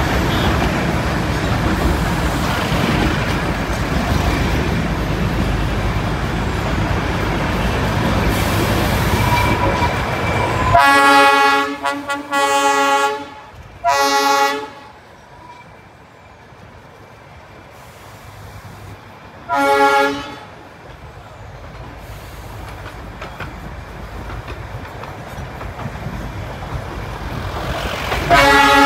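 Darjeeling Himalayan Railway toy train running with a steady rumble that drops away about eleven seconds in. Its horn then sounds two blasts close together, another some six seconds later, and a fourth right at the end.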